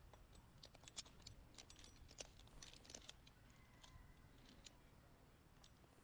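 Faint, irregular light clicks and ticks, about a dozen, bunched in the first half, over near silence.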